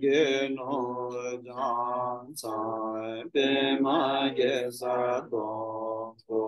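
A Tibetan Buddhist monk chanting a liturgy in a low, melodic male voice: long held phrases with wavering pitch, broken by short breaths between them.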